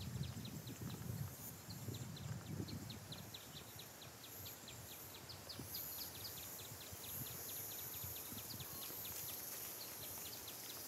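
Outdoor hillside ambience: a steady run of short, high chirps, several a second, from a small animal calling, over a low wind rumble on the microphone.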